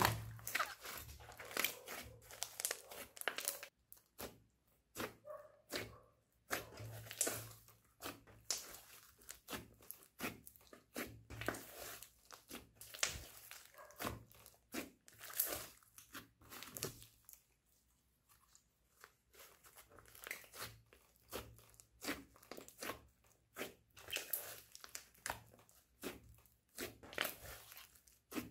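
Hands kneading and stretching a thick mass of slime with clay and glitter mixed in: sticky crackles, pops and tearing sounds in irregular bursts, with a short lull about two-thirds of the way through.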